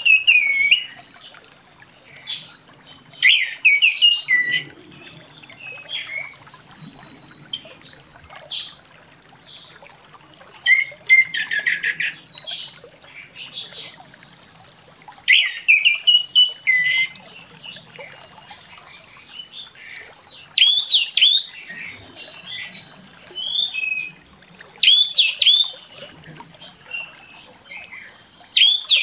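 Orange-headed thrush (anis merah) in full song: short, varied phrases of clear whistles that slide up and down, mixed with fast rattling trills, each phrase following the last after a pause of a second or two.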